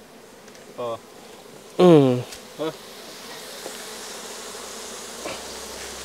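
Steady buzzing of a disturbed honeybee colony as combs are taken out of its earth nest; the hum swells a little about halfway through. Short vocal exclamations cut in about one and two seconds in, the second the loudest and falling in pitch.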